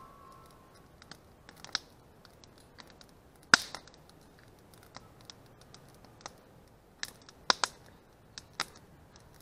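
Wood campfire crackling, with scattered sharp pops and snaps. The loudest pop comes about three and a half seconds in, and a few more follow close together near the end.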